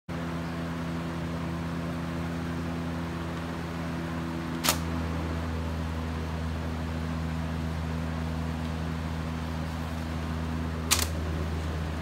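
Vintage GE five-blade box fan running: a steady motor hum and blade whoosh. Two short sharp clicks, about five seconds in and near the end, each with a slight shift in the hum.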